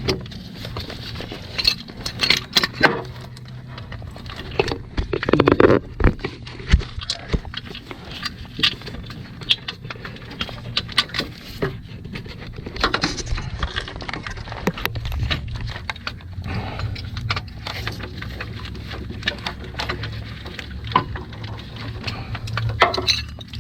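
Irregular metal clicks, clinks and knocks of a bolt and accessory-drive parts being handled and fitted by hand in an engine bay, over a steady low hum.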